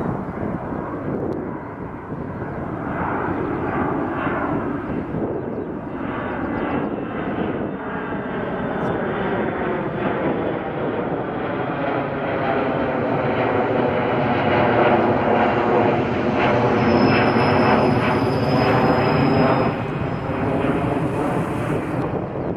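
An aircraft engine droning as it passes, growing louder for most of the time and easing off near the end.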